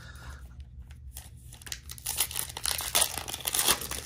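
Foil trading-card pack wrapper crinkling as it is torn open by hand, louder from about two seconds in.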